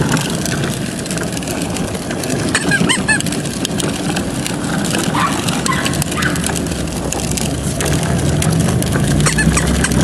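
Hard plastic wheels of a Little Tikes Cozy Coupe ride-on toy car rolling over asphalt: a steady rolling noise with constant small clicks and rattles.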